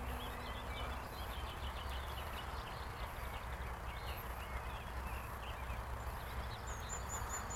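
Quiet outdoor background: a steady low rumble of wind on the microphone, with faint bird chirps and a faint distant hum.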